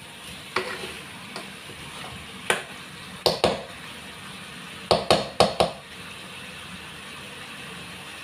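Chicken and pork pieces browning in a pot with a steady sizzle, while a spatula stirs them, knocking and scraping against the pot in sharp clacks, most in a quick cluster about five seconds in. The stirring stops about six seconds in and only the sizzle goes on.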